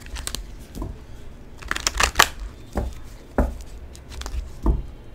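A deck of tarot cards being shuffled by hand: irregular papery snaps and rustles, with a quick cluster of them about two seconds in and single sharper snaps after.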